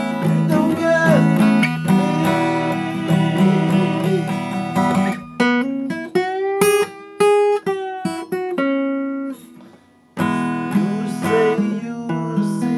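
Acoustic guitar playing an instrumental passage: strummed chords with picked, bending lead notes. It nearly stops about nine seconds in, then resumes a second later.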